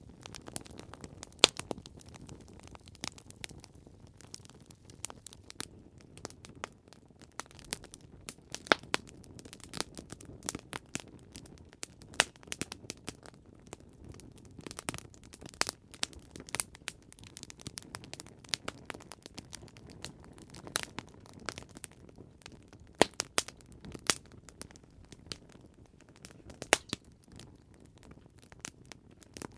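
Wood fire crackling: irregular sharp pops and snaps, several of them loud, over a low steady hiss of burning.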